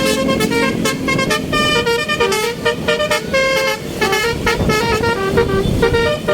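Indonesian bus 'telolet basuri' multi-tone air horn playing a quick tune of short, changing notes, over the rumble of traffic.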